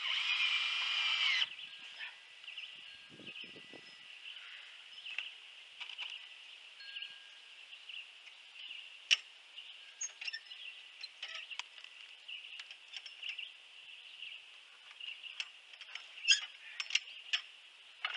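A cordless drill runs for about a second and a half, driving a screw to mount a shelf bracket, and its pitch drops as it stops. Scattered light clicks and taps follow, over a faint steady high-pitched ringing.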